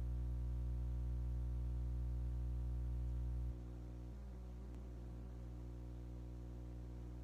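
A steady low hum with a stack of overtones, louder for the first three and a half seconds and then dropping to a quieter level. The owner does not know what is causing the hum.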